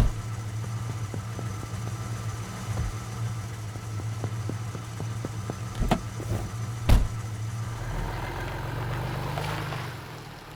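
A steady low motor hum with scattered light clicks and three sharp thumps, one at the start and two about six and seven seconds in; the hum fades away near the end.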